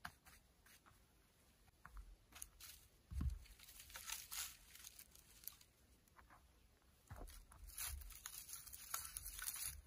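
Dry sticks and branches rattling and crackling as they are gathered from a pile and stacked into a shallow earth pit, with a dull thump about three seconds in.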